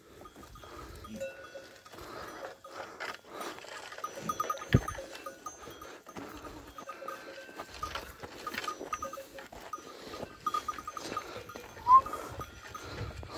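Bells on a browsing goat herd clinking irregularly, with rustling in the brush. A sharp knock about five seconds in, and a short rising squeak near the end, are the loudest sounds.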